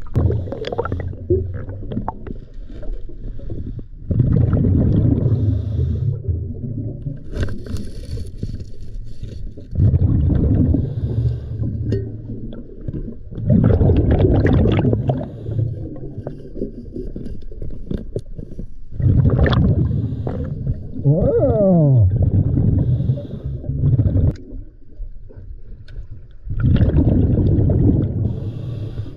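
Scuba diver breathing through a regulator underwater: rumbling bursts of exhaled bubbles every five or six seconds, with quieter stretches of inhalation between them. A short sliding whine is heard about two-thirds of the way through.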